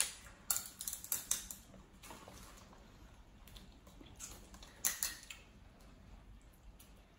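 Spanner crab shell cracking and clicking as it is broken apart and picked at by hand: a cluster of sharp clicks in the first second and a half, and more around five seconds in.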